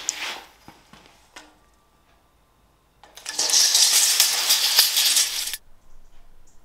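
Tape measure in use on oak boards: a short scrape at the start and a click about a second and a half in, then the blade retracting with a loud rattling hiss for about two and a half seconds that stops abruptly as it winds home.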